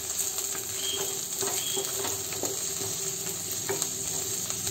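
Chopped onions and carrots sizzling in oil in a nonstick wok over high flame, stirred with a wooden spatula whose irregular strokes scrape across the pan.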